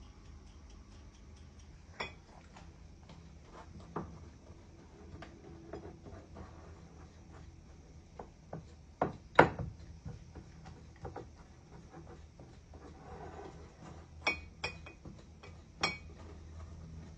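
Kitchen clatter: dishes and utensils knocked and clinked together at irregular intervals, the loudest knocks a little past halfway and a quick run of sharper clinks near the end.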